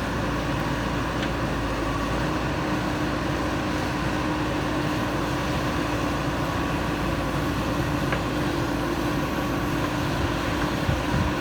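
JCB 3DX backhoe loader's diesel engine running steadily at a constant pitch while the machine works.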